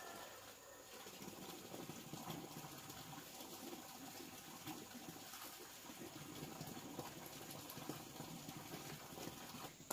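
Faint, steady sound of running water.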